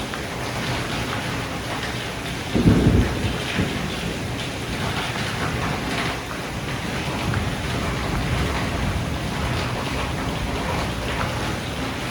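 Steady heavy rain falling, with a clap of thunder about two and a half seconds in that cracks and rumbles for about a second before settling back into the rain.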